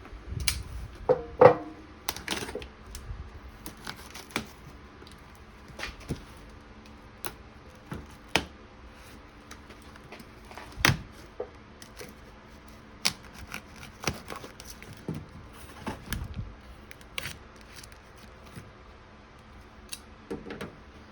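A cardboard box being opened and unpacked by hand: scattered, irregular clicks, rustles and knocks of cardboard and packing, with louder knocks about a second and a half in and again about eleven seconds in.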